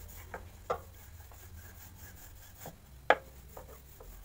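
Wooden rolling pin rolling out pastry dough on a countertop: a soft rubbing with a few light knocks, and one sharper knock about three seconds in.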